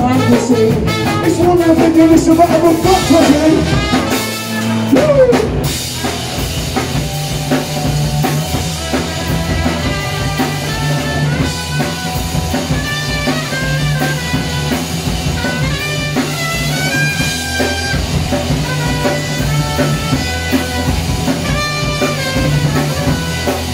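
Live rock band playing loud in a small venue: drum kit, electric guitars and bass guitar. The loudness drops briefly about five seconds in, then the band carries on.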